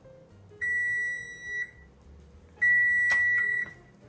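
Oven timer beeping: two long electronic beeps, each about a second, signalling the end of the bake time. A short click comes during the second beep.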